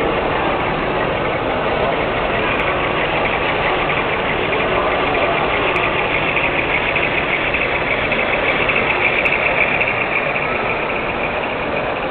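Model diesel locomotives with sound units playing a steady diesel engine sound as the grain train runs past, growing a little louder as the locomotives pass about halfway through.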